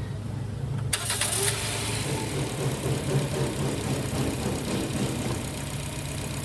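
Toyota Corolla engine idling steadily, the engine being checked for a misfire. A hiss comes in about a second in and carries on.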